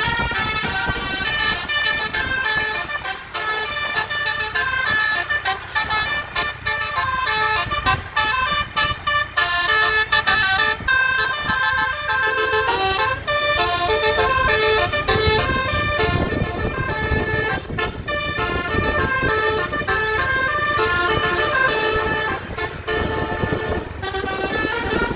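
Twelve-trumpet telolet basuri bus horn playing a fast tune of short notes that step from pitch to pitch. A low rumble rises beneath it in the second half.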